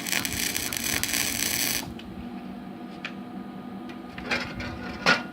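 Small 120-volt MIG welder laying a tack weld on steel track parts: the arc crackles and sizzles for about the first two seconds, then cuts off. A steady low hum is left underneath, and two metal knocks come near the end, the second louder.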